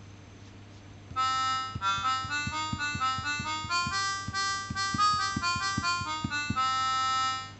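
Accordion sound from a MIDI synthesiser, played from a computer keyboard laid out as a button accordion. A held chord starts about a second in, then a quick melody runs over short bass notes, and it ends on another held chord.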